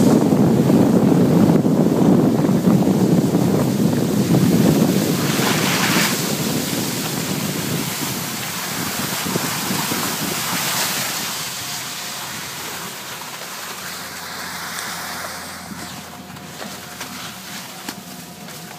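Wind buffeting the microphone along with the hiss of skis sliding over packed snow. It is loud for the first several seconds, then fades away as the skiers slow to a stop.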